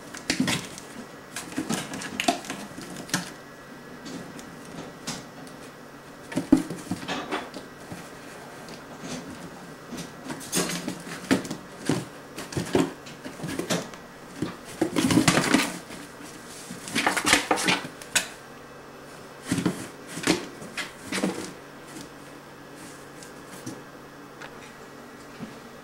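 A Siamese kitten clawing and batting at a cardboard box and its plastic packing-slip pouch: irregular scratching, scraping and tapping on the cardboard, with a few longer scrapes about the middle.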